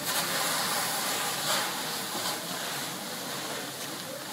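Steady rushing hiss of a firefighter's hose jet spraying water onto a burning car, with a couple of brief pops.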